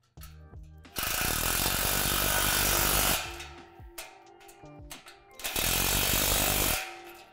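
Cordless drill running in two bursts, about two seconds and then just over a second, driving bolts into the joints of a tubular playset frame. Background music plays underneath.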